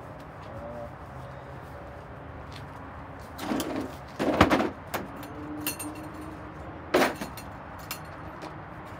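Handling noises: a couple of short rattles about three and a half seconds in, then a sharp knock about seven seconds in, with small clicks between, over a low steady background.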